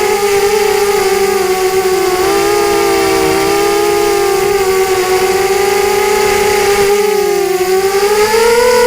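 FPV quadcopter's brushless motors and propellers whining, several close tones wavering in pitch with throttle and rising toward the end.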